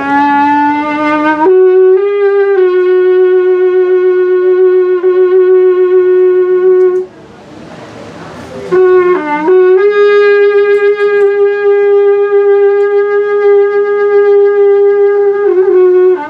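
A toxácatl, a Tlaxcalan ceremonial wind horn of mourning, sounding long held notes. A first low note steps up after about a second and a half and is held. After a short breathy break about seven seconds in, a second long note follows, dipping briefly at its start and wavering near the end.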